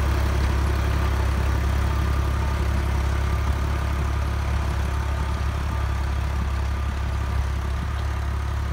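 Tractor diesel engine running steadily under load, driving a rotavator that churns the soil between cotton rows to weed them. The sound fades slightly as the tractor moves away.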